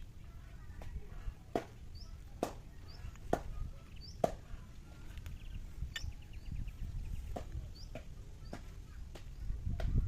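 A series of sharp knocks, roughly one a second and uneven in strength, with small birds chirping in the background.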